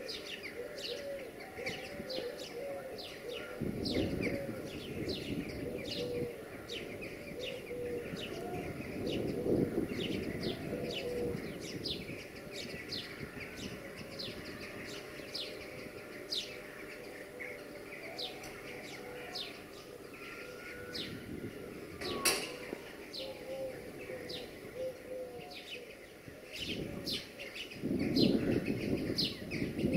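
Small birds chirping in quick repeated calls and pigeons cooing. A single sharp click sounds about two thirds through, and near the end a rumble grows louder as a freight train hauled by a 060-EA electric locomotive approaches.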